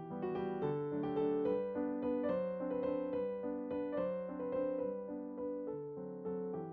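Background piano music, a melody of single notes over a steady accompaniment.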